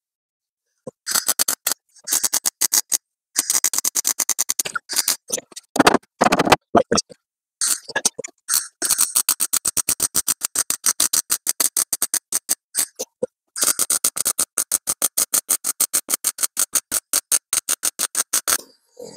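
MIG welder burning in a sheet-steel repair patch on CO2 shielding gas, giving a fast, even crackle. It comes in several short runs of a second or two, then two longer runs of about four to five seconds each in the second half.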